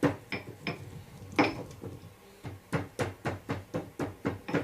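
Pestle pounding dry-roasted cloves, black pepper and liquorice root in a mortar to crush them into powder. A few scattered strikes are followed, about halfway in, by a steady beat of about four strokes a second.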